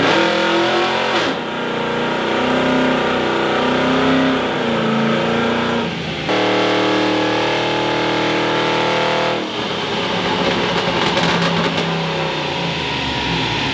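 Pickup truck's engine running under load on a chassis dynamometer, revving up and down. About halfway through it holds a steady high pitch for roughly three seconds, then drops off.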